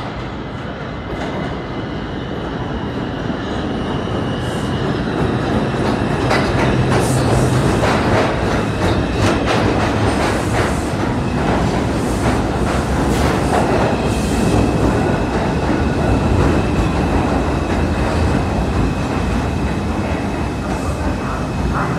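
An R142 subway train pulls into the station. Its rumble builds over the first several seconds, and its wheels click rapidly over the rail joints as the cars pass. A steady high whine sets in about halfway through as the train slows to a stop.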